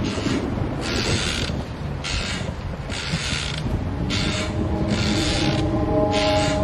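A rhythmic rasping creak, about one stroke a second, alternating longer and shorter strokes like something worked back and forth, over a low steady drone.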